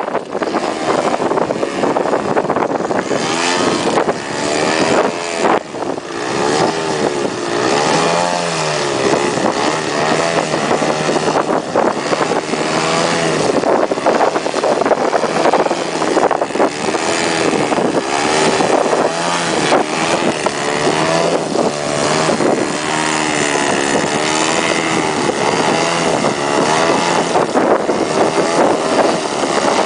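Small engine of a radio-controlled model aircraft in flight, running continuously with its pitch repeatedly rising and falling as it manoeuvres.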